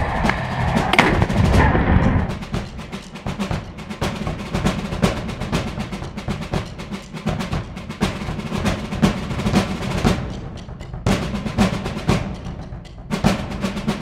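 Drum-led percussion music: fast, rapid drum hits keep going throughout, louder and fuller in the first couple of seconds.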